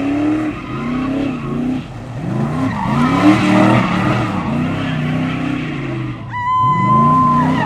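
Car engines revving hard again and again, each rev rising and falling in pitch, over tyre squeal and skidding from cars doing burnouts. About six seconds in, a steady high-pitched tone holds for just over a second.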